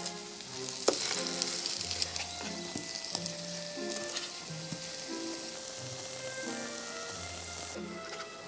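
Egg-battered eggplant slices frying in shallow oil in a pan: a steady crackling sizzle that thins out near the end. Soft background music plays underneath.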